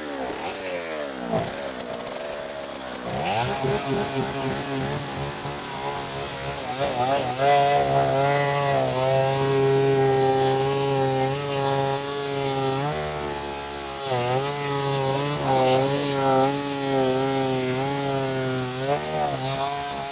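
Two-stroke chainsaw engine running: it revs down and up several times in the first few seconds, then climbs to high revs and holds there, the pitch wavering, with a brief dip partway through.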